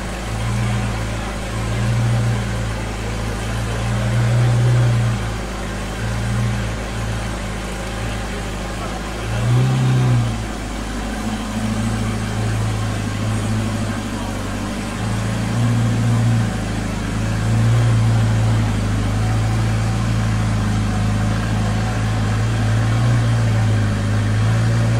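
Zenvo TSR-S's twin-supercharged V8 idling steadily, with a few light throttle blips that briefly raise its pitch, the clearest about ten seconds in and again about six seconds later.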